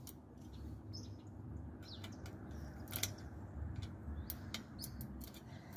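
Small birds chirping now and then, with scattered sharp clicks and taps as a screwdriver works a joint in a black plastic pipe frame.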